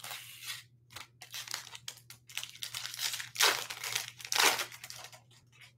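Foil wrapper of a 2021 Bowman Chrome hobby pack being crinkled and torn open by hand: an irregular run of crackling rustles, loudest twice, about three and a half and four and a half seconds in.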